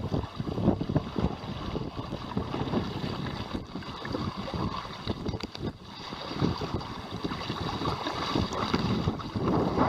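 Wind buffeting the microphone in uneven gusts, over water rushing and splashing along the hull of a small sailing outrigger canoe made from a surfski.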